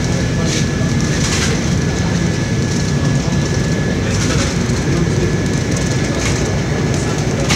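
Cabin noise inside a moving BRT bus: a steady low rumble of engine and road, with the odd light rattle of the bus body and a faint steady high whine.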